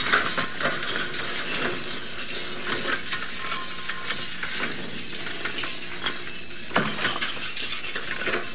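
A 1963 Riblet fixed-grip double chairlift in an uncontrolled rollback with its chairs loaded: a dense, continuous clatter of metal clanks and rattles, with one louder bang a little before the end.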